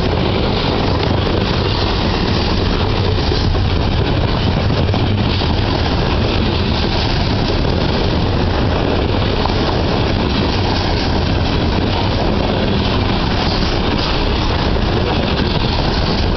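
Loaded coal hopper cars of a heavy freight train rolling past, a steady rumble and clatter of steel wheels on the rails.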